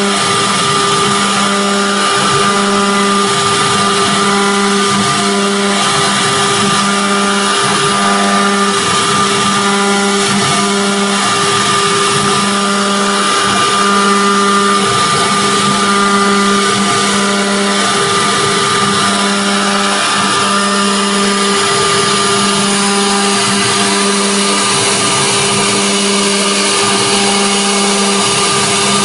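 CNC router spindle running steadily while its cutter engraves a 3D relief into an aluminium plate: a steady whine over the hiss of the cut.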